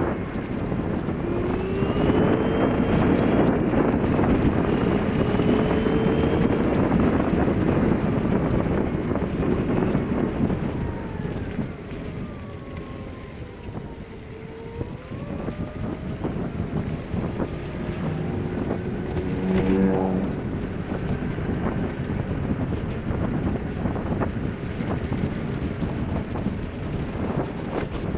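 Wind buffeting the microphone over a vehicle's engine, driving on rain-soaked roads. The engine's pitch rises early on as it picks up speed, falls and climbs again around the middle, and a short pitched tone sounds about twenty seconds in.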